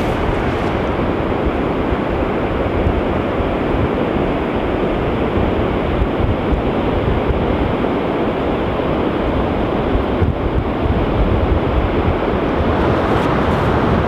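Wind buffeting the microphone over the steady rush of surf, a loud, even noise without a break.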